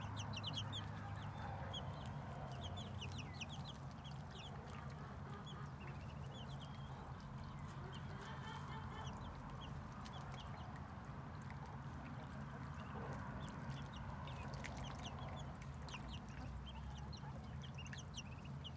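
Muscovy ducklings and chicks peeping, many short high cheeps scattered throughout, over a steady rush of water running from a hose into their puddle.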